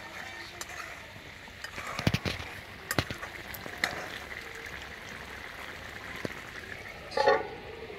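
Prawn and ridge gourd curry bubbling in a metal kadai as a slotted steel spatula stirs it, scraping and tapping against the pan several times between about two and four seconds in. Near the end comes one louder, ringing metal clang.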